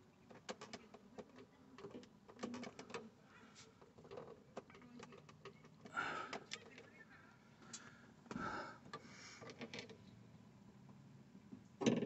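Faint scattered clicks and light metal scrapes as the oiled piston shaft is handled and worked into a Mercedes-Benz SLK 350's hydraulic roof lock cylinder. A couple of short breathy noises come around the middle, and a sharper click comes at the very end.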